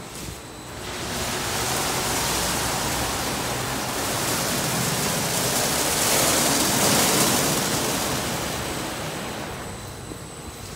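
Spinning foam wrap brushes of a Washworld Profile MAX automatic car wash scrubbing a soap-covered car, a steady wet swishing hiss of brushes and water. It swells around six to seven seconds in and eases off toward the end as the brushes move away.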